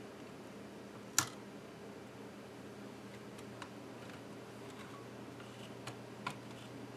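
Small scattered clicks and ticks from handling the iBook G4's plastic case and internal parts during disassembly, with one sharp click about a second in, over a faint steady hum.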